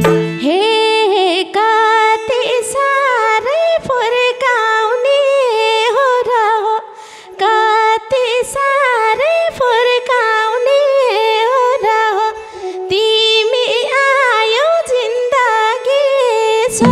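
A woman singing a Nepali dohori Teej folk-song verse solo, with gliding ornamented phrases over steady held harmonium notes, the drums dropped out. There is a short break in the singing about seven seconds in.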